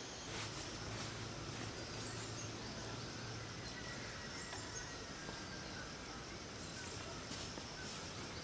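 Faint outdoor woodland ambience: a steady background hiss with distant insects and birds calling faintly, and a few soft clicks.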